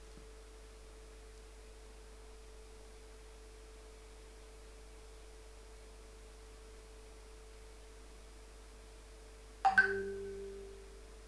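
A WhatsApp Web message notification chime sounds once near the end: a short pitched ding that rings out for about a second. Under it runs a faint, steady electrical hum.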